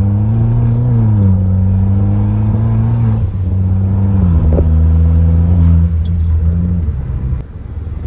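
BMW 116i turbo engine pulling hard while driving. Its note drops in steps a few times, as at gear changes, then eases off near the end.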